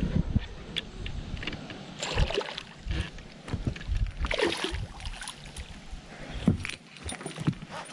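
A hooked fish splashing and thrashing at the surface as it is reeled toward the boat, in several short, irregular bursts over a low, uneven rumble.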